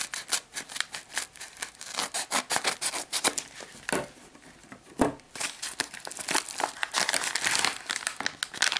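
Scissors snipping through a padded paper mailing envelope, with rapid crackling cuts, then a knock about five seconds in as something is set down on the table. From about six and a half seconds, steady crinkling of the envelope and a plastic packaging bag being handled.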